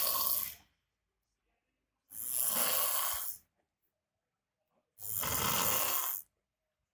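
A man asleep snoring very loudly, each snore lasting a little over a second, with near-silent gaps of a second or two between them: three snores, the first ending just after the start.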